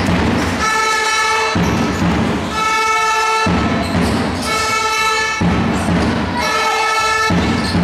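A horn in the crowd sounds four times in a steady rhythm, each blast one steady note about a second long. A low noisy rumble fills the gaps between the blasts.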